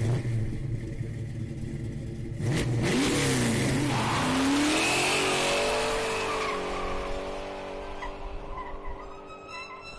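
A car engine revving, its pitch swooping up and down, then running at a steady, slowly falling pitch that fades out near the end.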